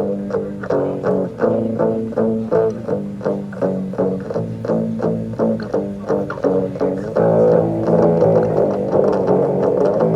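Instrumental music with plucked string notes, about three a second, played through a Sony ICF-CS650 Dream Machine clock radio, thin and short on treble; about seven seconds in the music turns fuller and denser.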